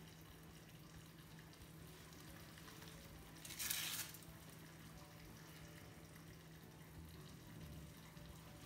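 Near silence: faint room tone with a low steady hum, and one brief hissing rustle about three and a half seconds in.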